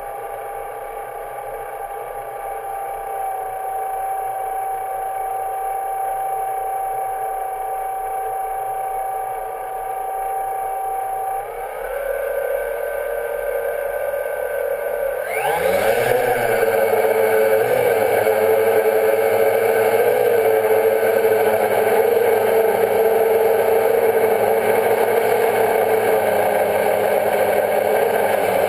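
Quadcopter's electric motors and propellers whining, heard close from the drone's own camera. The whine holds a steady tone at first and steps up in pitch about twelve seconds in. A few seconds later it spools up sharply and louder as the drone lifts off, then settles into a steady hover whine that wavers slightly.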